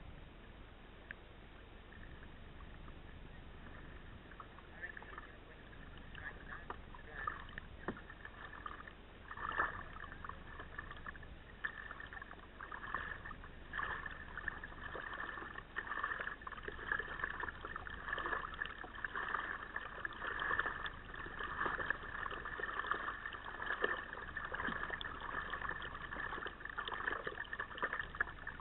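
Kayak moving through calm water: small irregular splashes and trickling from the paddle and the water at the hull, heard muffled. They grow busier and louder about a third of the way in.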